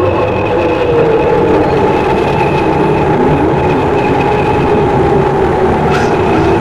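Horror ambience soundscape: a loud, steady rumbling wash with several held, slowly wavering tones over it, and a brief sharp swish about six seconds in.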